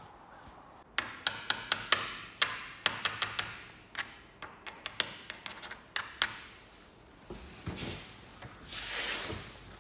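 A plastic card tapping and scraping on a wooden tabletop as it chops a small pile of powder: about a dozen sharp taps over five seconds. Then comes a hissing sniff through one nostril, with a louder one near the end.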